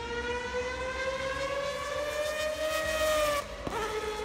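High-revving race car engine with a shrill wail, rising steadily in pitch as it accelerates, then dropping sharply about three and a half seconds in as it shifts up.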